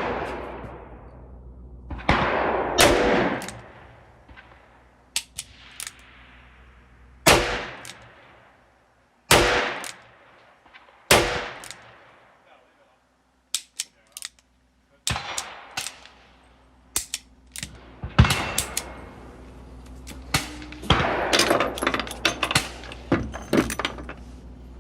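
Smith & Wesson Air Lite revolver firing .38 Special reloads: about seven shots a couple of seconds apart, each with a ringing tail. Near the end comes a quick run of smaller sharp clicks and knocks.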